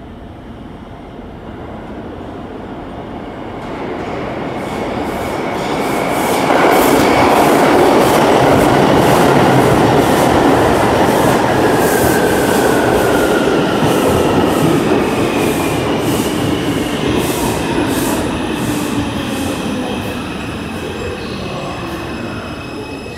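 An R142 New York City Subway train pulls into the station. Its rumble builds as it comes out of the tunnel, and the wheels click rapidly over rail joints through the loudest part. Falling motor and brake whines follow as it slows.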